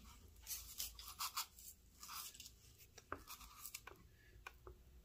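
Fingers handling a small N scale model locomotive: faint rubbing and scratching, then a few small clicks from about three seconds in.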